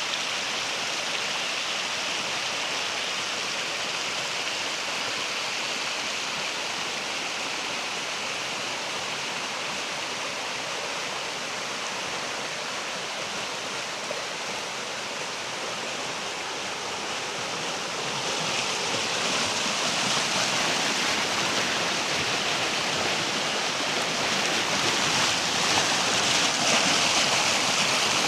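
Waterfall water rushing and splashing in a steady hiss, growing louder about two thirds of the way through.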